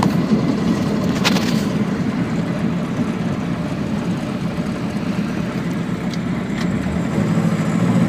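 LuAZ running steadily on the move, with a faint knock about a second in and a couple of lighter ticks a little after six seconds: the rare driveline knock that comes mostly when the load drops off, which the owner traces to the rear half-shafts.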